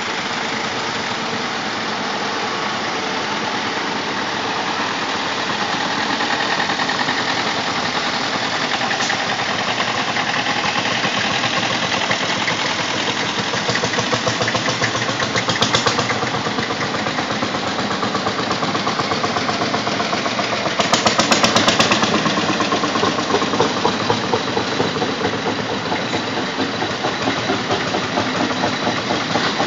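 Several tractor engines running as a line of tractors drives slowly past. About two-thirds of the way through, one engine is louder, with a rapid, even chug for about a second.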